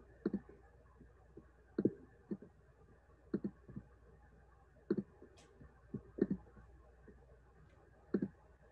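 Computer mouse clicking: about ten short clicks, irregularly spaced a second or so apart, several of them in quick pairs like double-clicks.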